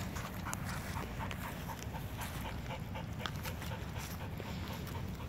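A dog panting in quick, even breaths over a steady low rumble.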